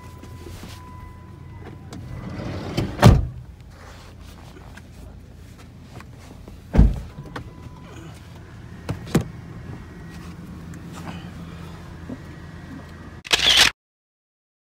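Steady low hum inside a vehicle, broken by loud thumps about three and seven seconds in and two lighter knocks around nine seconds. Near the end comes a short loud burst, then the sound cuts off abruptly.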